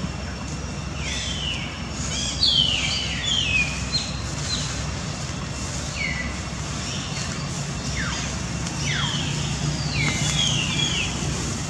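Short high-pitched animal calls, each falling in pitch, repeated many times at irregular intervals over a steady low hum.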